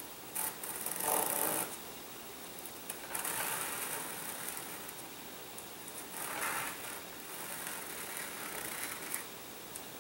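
A small hand saw cutting through a wooden model glider wing, in several short spells of sawing strokes with pauses between.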